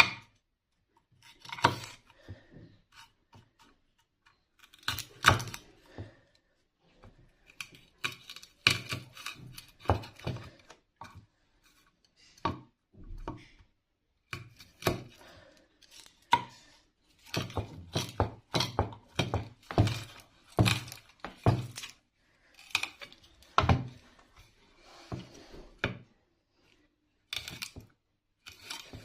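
Irregular knocks, taps and clinks of kitchen utensils on a work surface, some with a duller thump, coming in uneven clusters.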